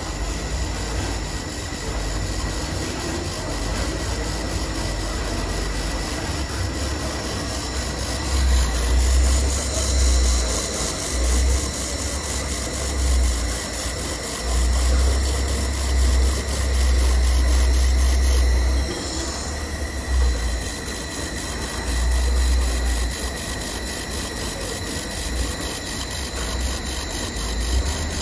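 Handheld IPG LightWELD XR laser welder with wire feed running a weld bead on a stainless steel exhaust tube: a steady high whine over a hiss, with spatter from the weld pool. The laser is modulating four times a second.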